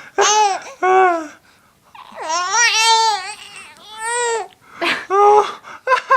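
Baby babbling in a run of high-pitched, arching vocal sounds, about six of them with one long drawn-out one in the middle, somewhere between laughing and starting to cry.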